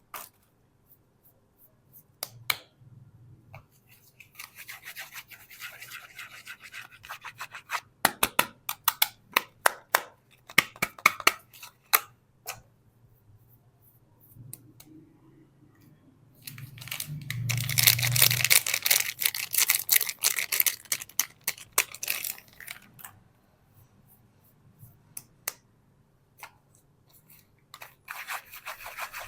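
Bar soap being unwrapped by hand: a run of sharp crinkles and clicks from the packaging, with a dense stretch of crinkling and tearing lasting several seconds past the middle.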